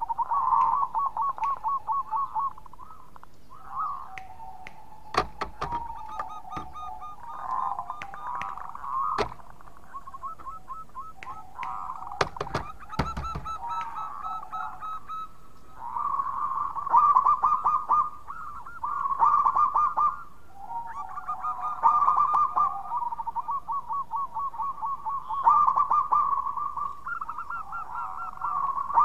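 Zebra dove (perkutut) cooing its song over and over: bouts of quick, evenly pulsed coos a few seconds long, with a few sharp clicks in between.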